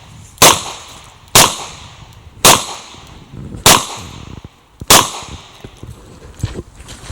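Five shots from a Chiappa Rhino revolver in .40 S&W, fired at a steady pace about a second apart, each with a short echo tail. Two faint knocks follow near the end.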